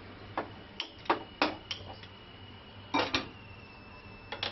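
A hand-held gas stove lighter clicking repeatedly at the burner as it is lit, with metal clanks as an aluminium pressure cooker is set back down on the stove grate.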